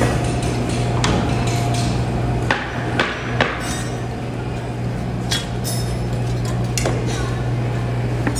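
A metal tool striking and breaking apart a sand-casting mould to free the hot metal castings: a series of sharp knocks and clinks, some ringing briefly, over a steady low hum.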